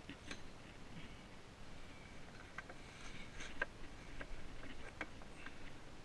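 Faint, irregular clicks and light rustling as a car seat belt and its plastic fittings are handled against a child car seat.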